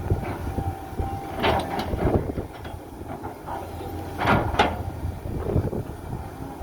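Heavy earthmoving machinery (excavator or bulldozer) rumbling at work, with several loud metallic clanks, the loudest a pair about four and a half seconds in.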